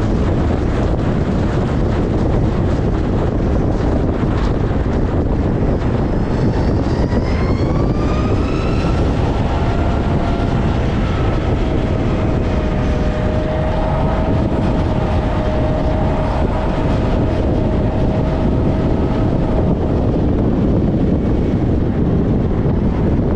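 Heavy wind noise on the microphone from riding a Zero SR/S electric motorcycle. About seven seconds in, the electric drivetrain whine rises in pitch as the bike speeds up, then holds a steady note before fading out near the end.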